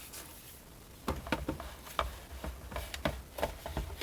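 Plastic clicks and light knocks, a dozen or so short separate taps starting about a second in, as a detachable boombox speaker is handled and fitted back onto the main unit.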